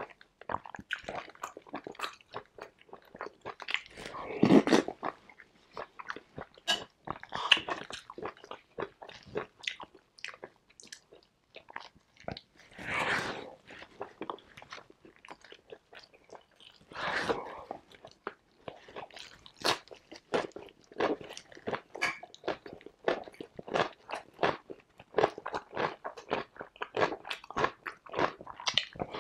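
Close-miked eating sounds: steady chewing and crunching with many wet mouth clicks, broken by a few longer slurps from spoonfuls of soup.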